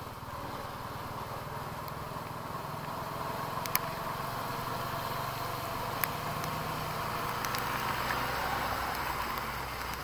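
Single-cylinder engine of a TVS Apache RTR 200 4V motorcycle running at low speed through floodwater, under a steady hiss of water and wind. There are two sharp taps, about four and six seconds in.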